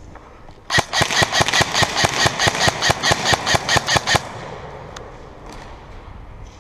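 Airsoft gun firing a sustained burst of about twenty sharp shots, roughly six a second, starting about a second in and stopping after about three and a half seconds.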